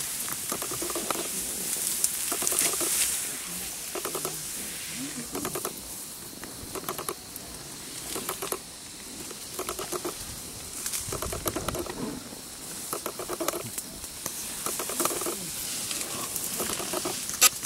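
Tall grass rustling and swishing against an elephant and its riders as it pushes through, with short calls repeating every second or so over the rustle.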